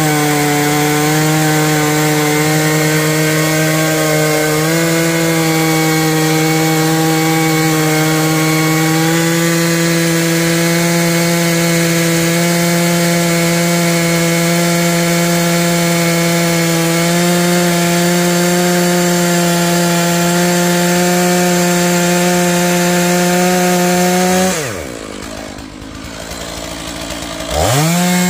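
Stihl MS461 two-stroke chainsaw held at full throttle, cutting through a log with a steady high engine note. About 24 seconds in the throttle is released and the engine drops to idle for a few seconds, then revs back up near the end for the next cut.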